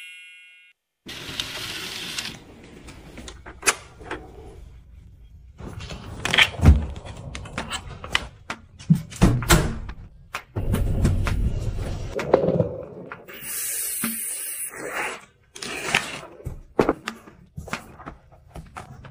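A run of short clicks, knocks and handling noises from things being moved and opened around the home, with a few seconds of hissy rustling in the middle.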